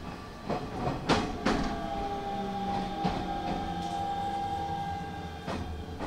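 Hanshin 5500-series electric train running over rail joints with a few sharp clacks. From about two seconds in, the motors give a steady whine that sinks slightly in pitch as the train slows for its terminal stop.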